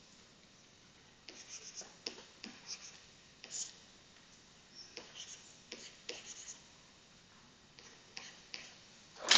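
Stylus scratching and tapping on a tablet screen while handwriting, in short clusters of strokes with quiet pauses between them.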